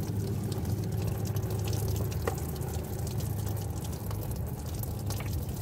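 Antifreeze draining out of a 1985 Camaro Z28's radiator through its opened bottom drain plug, a thin stream pouring and dripping down, over a steady low hum.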